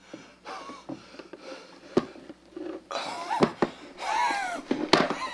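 A man breathing hard in ragged, wheezing gasps, with strained wavering groans about three seconds in and again about a second later, and a few sharp knocks between.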